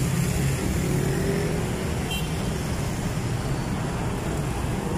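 Steady street traffic: motorcycles and motorcycle-sidecar tricycles running past, a continuous low engine hum with road noise.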